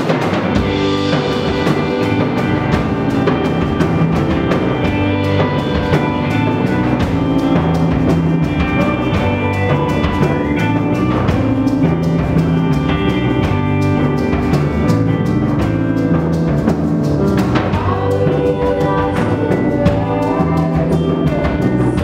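Live band playing loudly and continuously: electric guitars, drum kit and keyboard, with a trumpet line at the start.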